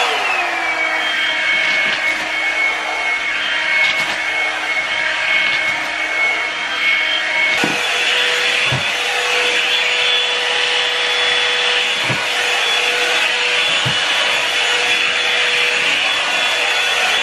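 Hot-air brush blow-drying a wet wig, its motor running steadily. The whine drops in pitch right at the start and steps back up about halfway through, with a few faint knocks of the brush.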